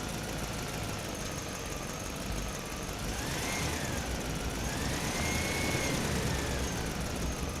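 Truck engine running as the truck drives through a parking structure. A thin whining tone rises and falls twice in the middle, and the sound grows slightly louder there.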